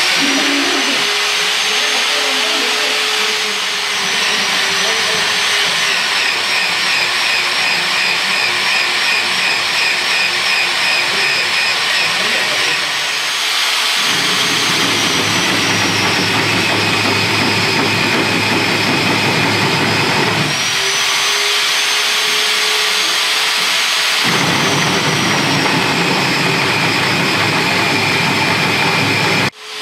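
Magnetic-base drill running, its cutter boring into the steel frame of a steam locomotive: a loud, steady motor whine. The sound turns coarser and fuller about halfway through and again near the end.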